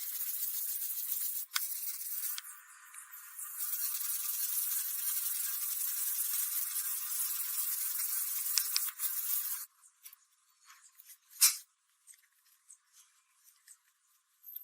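Steady rasping noise with a short dip about three seconds in, stopping abruptly about ten seconds in; then scattered light clicks and one sharp knock.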